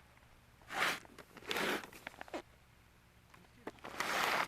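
A few short scraping noises, about four, with quiet between them.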